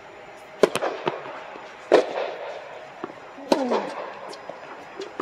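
Tennis racket strikes on the ball during a rally: a serve hit about half a second in, then the returns, about one every one and a half seconds, four sharp pops in all, with fainter ball bounces between them. The hits echo under the dome of the indoor court.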